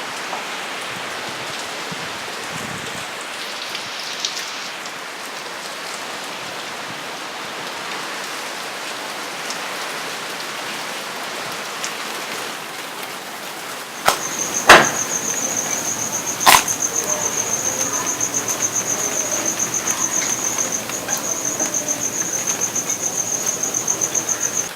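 Steady rain falling, then, about fourteen seconds in, a high insect trill starts, pulsing rapidly and evenly, with a few sharp knocks as it begins, the loudest a second or two after the change.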